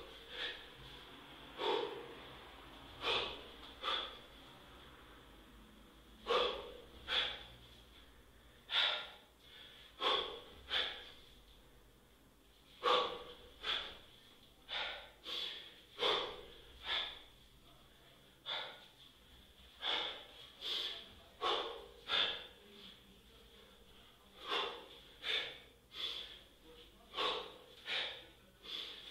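Kettlebell lifter breathing hard through a set of snatches: short, sharp, forceful breaths, about one or two a second, often in twos and threes.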